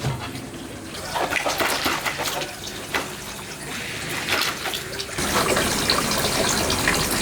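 Water splashing and trickling with scattered small clicks, then a louder steady rush of running or pouring water that starts suddenly about five seconds in.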